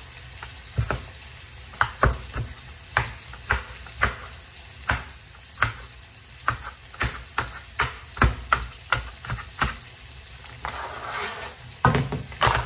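Tomato and onion frying in a pan with a low, steady sizzle, under a run of sharp knocks from a kitchen utensil, about one or two a second. A brief louder rush of sizzle comes near the end, then two loud knocks.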